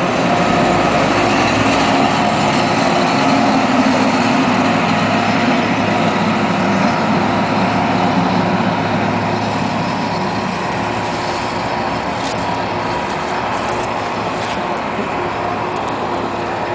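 A crane's engine running steadily as it moves a boxcar in a rail yard, with a few light clicks near the end.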